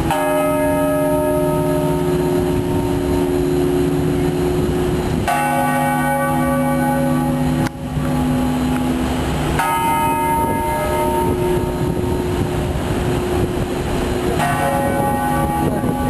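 A large bell tolled slowly as a memorial toll: four strokes about five seconds apart, each ringing on with a long, slowly fading hum, over a steady low street noise.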